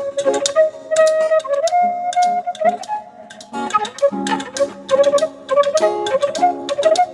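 Music: a sustained wind-instrument melody with sliding notes over quick, sharp percussion strikes and a lower accompaniment.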